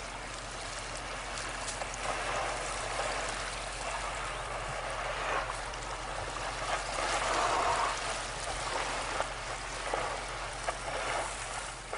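Water splashing and washing around a surfacing killer whale in shallow water, growing louder about seven seconds in.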